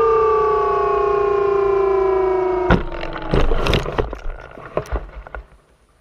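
Electric motor and propeller of an Eagle II RC trainer whining at a slowly falling pitch as it comes in to land. Nearly three seconds in, the whine breaks off with a knock at touchdown, followed by a few seconds of rustling and scraping as the airframe slides through tall grass and stops.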